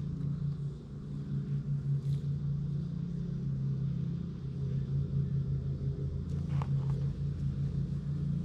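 A steady low rumbling hum with a slight pulsing, and two faint short chirps about six and a half seconds in.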